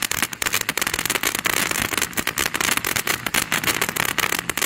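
Winda Fireworks Dino-Mite fountain firework crackling densely, many sharp pops in rapid succession, in its crackle finale.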